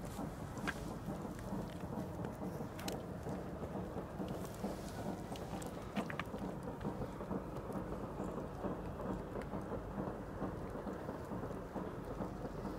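Wind buffeting the microphone: a steady low rumble, with a few faint clicks about a second, three seconds and six seconds in.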